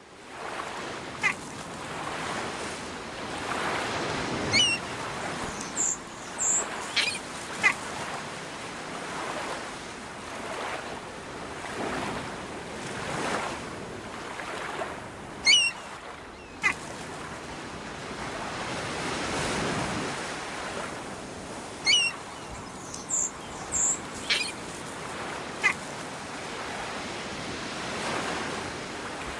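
Ocean surf washing in and out in slow swells, with short high bird chirps now and then.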